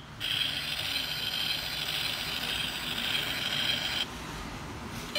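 Die-cast toy car giving a steady mechanical whirring for about four seconds, then dropping off.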